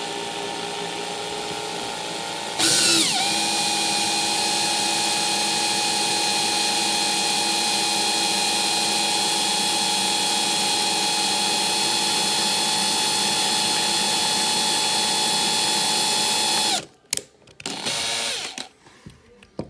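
Small power drill with a 5/64-inch bit drilling into the rivet of a die-cast toy car, running with a steady high whine. About two and a half seconds in it speeds up sharply, runs steady, then stops near the end, followed by a brief second spin.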